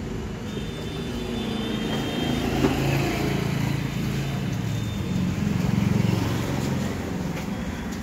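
A motor running with a steady low hum that swells louder about three seconds in and again around six seconds.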